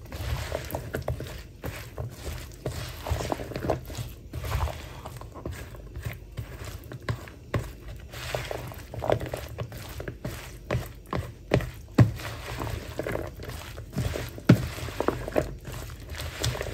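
A spoon mixing a chunky, dressed salad in a plastic bowl: irregular soft scrapes and knocks as the spoon turns the food and strikes the bowl, over a low steady hum.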